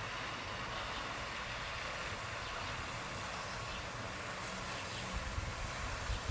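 Steady outdoor background hiss, with irregular low rumbles on the microphone starting about five seconds in.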